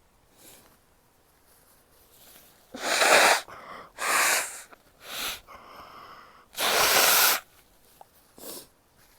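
A woman sneezing several times in loud, noisy bursts, the last and longest sneeze preceded by a held, voiced in-breath. A short sniff follows near the end.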